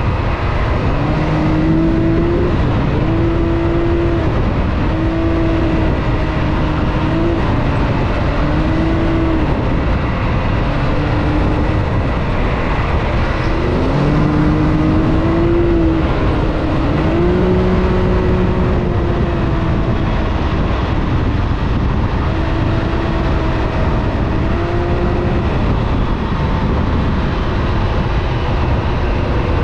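Side-by-side UTV engine running hard while driving, over a loud steady rush of wind and ground noise. Its steady note breaks off and comes back every second or two, at a somewhat different pitch each time.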